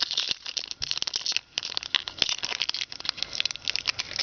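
Foil wrapper of a Bowman Chrome trading card pack crinkling and crackling in the hands as it is opened, a dense run of small sharp crackles.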